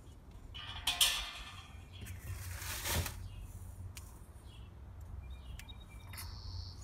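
Wire grates of a Weber kettle grill being handled and set on the kettle bowl: a few scattered knocks and metal rustles, over a low steady rumble.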